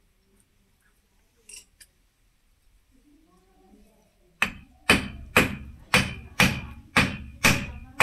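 Hammer blows on metal in a steady rhythm, about two a second, starting about four and a half seconds in, each with a short metallic ring.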